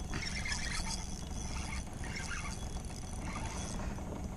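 Spinning reel being cranked to wind line in, its gears whirring and clicking, over a steady low rumble.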